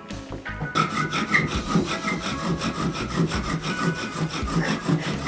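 Bow drill in use: a wooden spindle is sawn rapidly back and forth by a bow under heavy downward pressure in the notch of a wooden hearth board, giving a rhythmic grinding rub with a high squeak. This is the friction stage that heats the wood dust until it forms a coal.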